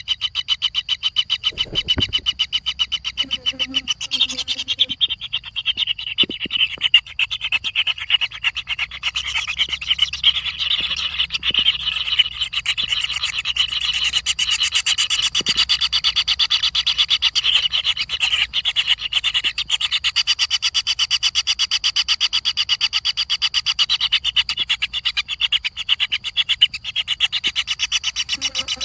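Rapid, continuous pulsing animal calls, high-pitched and steady.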